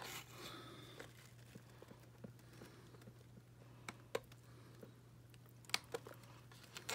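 Faint, scattered clicks of small hand cutters snipping the plastic fasteners that hold a doll's shoes in a clear plastic packaging tray, a few around the middle and a cluster near the end, over a low steady hum.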